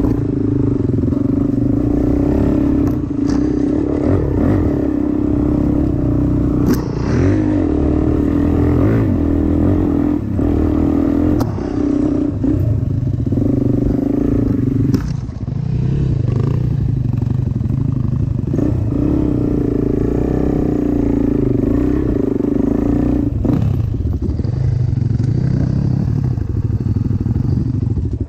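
Suzuki dirt bike engine running at low speed, its pitch rising and falling with the throttle, with a few sharp knocks and rattles from the bike jolting over rough ground.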